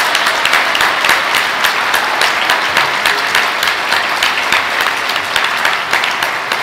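A large audience applauding: dense, steady clapping from many hands in a big hall.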